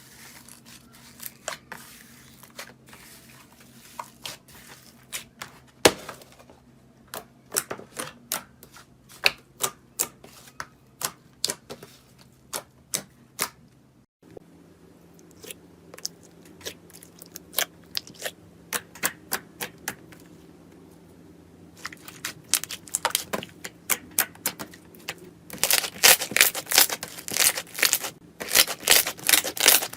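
Slime being squished and pressed by hand, giving sharp, irregular clicking pops of trapped air. Near the end these thicken into a dense crackle.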